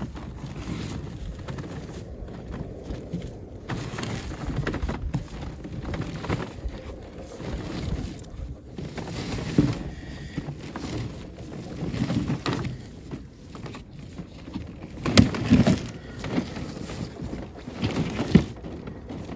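Wind buffeting the microphone, with irregular scuffs and knocks as a large spool of power cable is rolled along the ground; the loudest knocks come about 15 and 18 seconds in.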